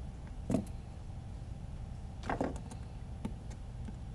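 Soft knocks and clatter of a carbon-fibre drone frame and soldering tools being handled on a silicone work mat, three times, over a steady low hum.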